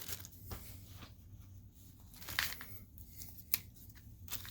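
A bag rustling and crinkling in short bursts while being handled, with one sharp click about three and a half seconds in.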